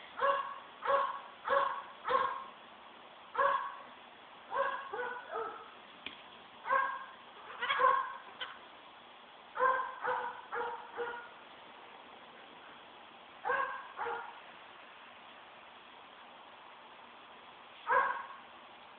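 Short, pitched animal calls repeated in runs: about two a second at first, then in scattered bunches, then a few seconds' pause before one more call near the end.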